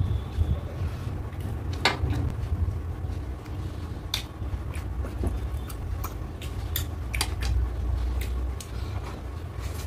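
Close-miked eating: a person chewing a mouthful of rice and curry, with sharp wet mouth clicks and smacks every second or so over a steady low rumble.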